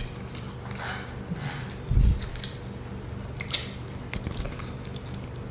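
Someone eating grilled chicken: scattered biting, tearing and chewing sounds with soft clicks, and a low thump about two seconds in, over a steady low hum.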